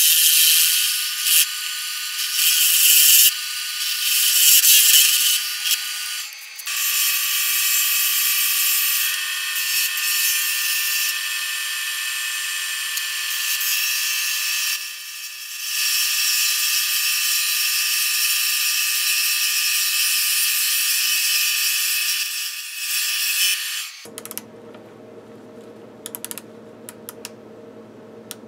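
Atlas 618 metal lathe turning a steel bar held in a collet: a loud, high-pitched hiss of the cut with a few steady tones, briefly dropping out twice. Near the end the cutting noise stops suddenly, leaving a quieter, lower hum.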